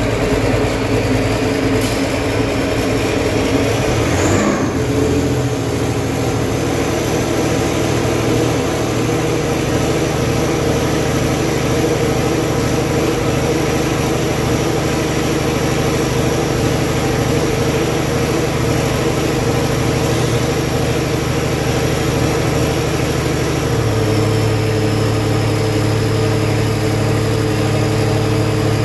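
Allis-Chalmers 180 pulling tractor's engine running steadily through its straight vertical exhaust stack. Its note shifts briefly about four seconds in, and settles to a different speed shortly before the end.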